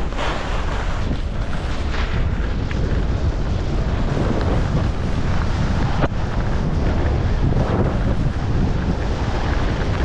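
Wind buffeting the microphone of a skier's point-of-view camera during a fast descent, a steady low rumble, with the rough hiss and scrape of skis running and turning over chopped-up, hard-packed snow that swells and fades with each turn.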